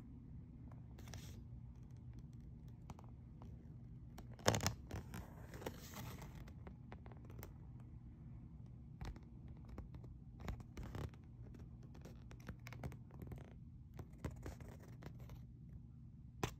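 Glossy paper collector's leaflet being handled: scattered crinkling and rustling with small scratches, loudest in a crackle about four and a half seconds in, over a faint steady low hum.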